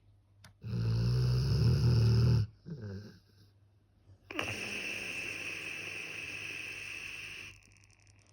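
Sleeping puppy snoring: a loud, rattling snore lasting nearly two seconds, a short softer one after it, then a longer, quieter, hissing breath of about three seconds.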